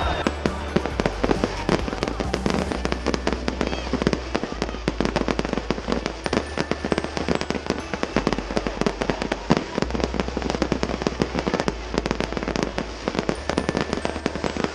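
Fireworks display: a rapid, continuous barrage of bangs and crackling bursts from aerial shells.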